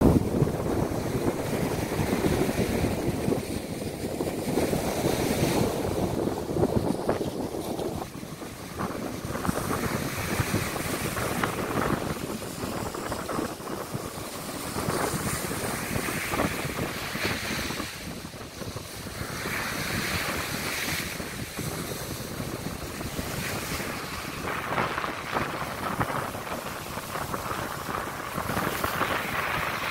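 Sea surf breaking and washing up a sandy beach, swelling and easing every few seconds, with wind rumbling on the microphone.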